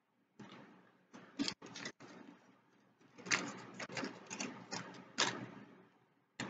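Close-miked eating sounds: a run of soft clicks, smacks and crackles while chewing bread, thickest in the second half.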